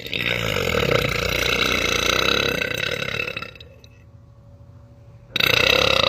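A woman belching loudly in one long burp lasting about three and a half seconds, its low pitch wavering. Another short, loud sound starts near the end.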